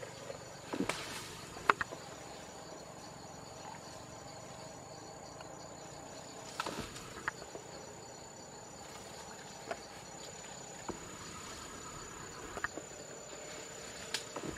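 Steady high-pitched insect drone, with scattered sharp snaps and crackles of twigs and leaves as an Asian elephant browses on tree branches with its trunk. The snaps come in a cluster about one to two seconds in, again around seven seconds, and singly later.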